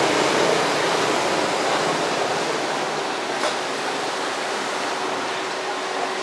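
Steady roar of street traffic noise, slowly fading, with a faint click about three and a half seconds in.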